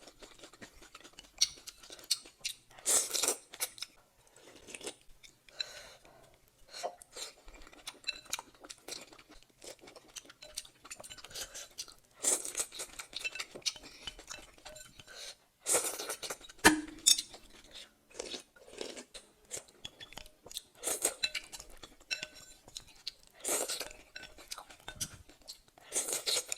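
Close-miked eating: irregular chewing and crunching of ramen, mushrooms and cucumber, with an occasional clink of a utensil against the dish, the sharpest about two-thirds of the way in.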